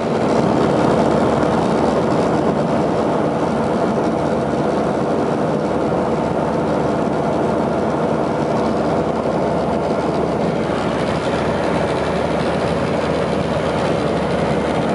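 Steady, unbroken engine noise of a running vehicle.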